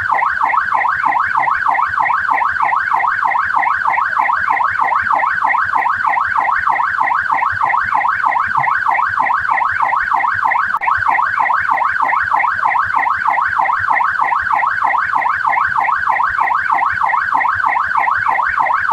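Australian police car siren in a fast yelp, its pitch sweeping rapidly up and down several times a second without pause, with a momentary break about eleven seconds in.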